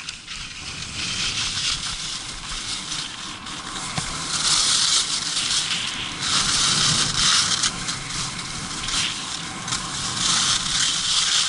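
Skis sliding and scraping over hard-packed, icy snow, a steady hiss that swells and eases in waves as the skier turns.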